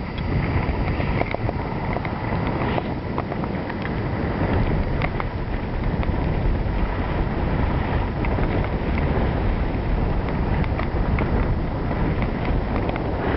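Wind buffeting a camcorder's microphone: a steady low rumble that grows a little louder about four seconds in, with faint scattered clicks above it.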